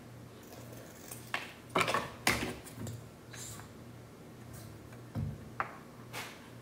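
Paper cut-outs being handled and set down on a wooden tabletop: a handful of short rustles and light taps, a cluster about a second and a half in and another near the end, over a faint low hum.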